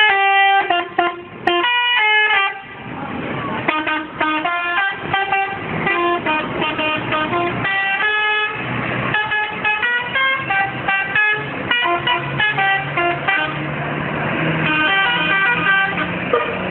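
Indonesian bus telolet horn, a multi-tone air horn, playing a stepping melody of short notes, loudest in the first couple of seconds. A low steady hum joins under it in the second half.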